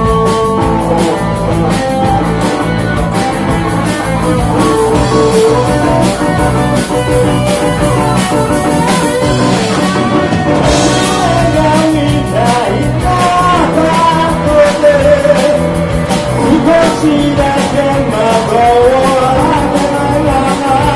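Live rock band playing: a drum kit keeps a steady beat under electric guitars and bass. Over it a lead melody bends up and down in pitch, most clearly in the second half.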